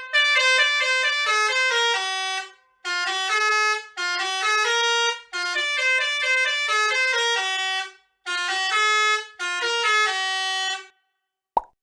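Basuri multi-tone telolet bus air horn playing a fast tune: four phrases of quickly stepping notes, each about two and a half seconds long, with short breaks between them.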